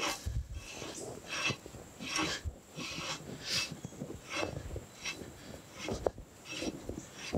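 Steel valve rod being turned by hand to screw it onto its threaded rod at the steam chest, making a string of short scraping rasps, about one every three quarters of a second.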